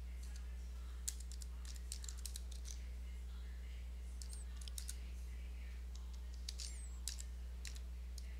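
Computer keyboard typing: short runs of keystroke clicks with pauses between them as a terminal command is entered, over a steady low electrical hum.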